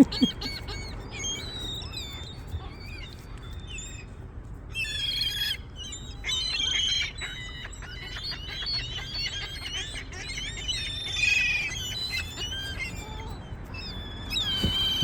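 A flock of seagulls calling at once: many overlapping high, squealing calls that bend in pitch, louder bunches coming and going, over a steady low rumble.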